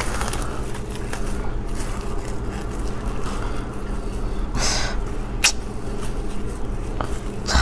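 Plastic cling film rustling and crinkling as it is peeled off a soft cake, with a louder crinkle about four and a half seconds in and a sharp tick soon after. A steady low hum runs underneath.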